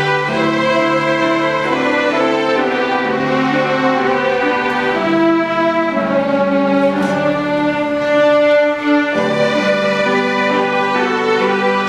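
String ensemble of violins playing together, bowing long sustained notes that change every second or so, with one note held for several seconds midway.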